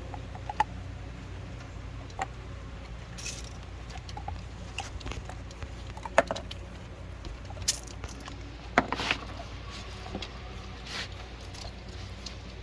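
Scattered light clicks and taps, with a few sharper knocks, over a steady low hum.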